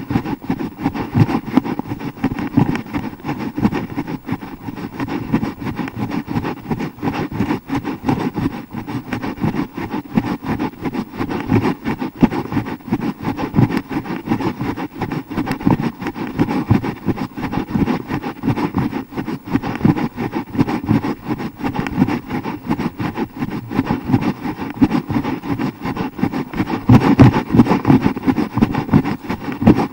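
Handling noise from a handheld action camera carried at a run: a continuous rough rumble of the hand rubbing and jolting the camera body, with dense, irregular knocks from the footfalls.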